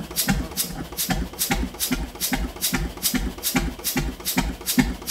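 Old hopper-cooled stationary engine of about 5 litres and 20 hp running steadily, with about two and a half even exhaust beats a second.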